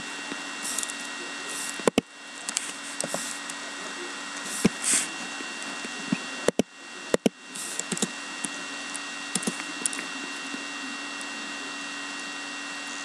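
Scattered clicks and taps of a computer keyboard and mouse, irregular and spaced out, over a steady electrical hum and hiss.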